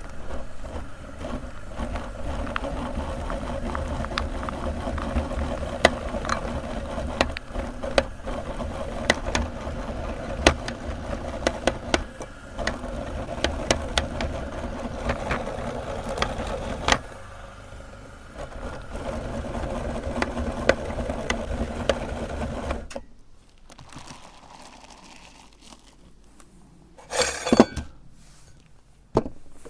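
Electric meat grinder running steadily as it grinds soap, with scattered sharp cracks as pieces break up in the auger. The motor dips briefly once, then stops about three quarters of the way through, leaving a few clinks and knocks near the end.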